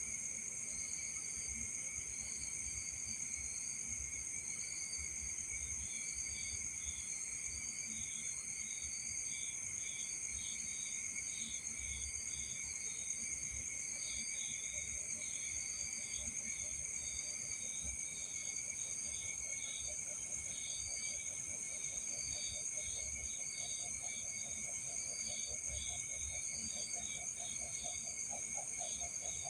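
Night insects, crickets, chirring steadily at several high pitches, with a faster pulsed chirping joining about six seconds in. From about twenty seconds a lower pulsing trill comes in and grows louder toward the end.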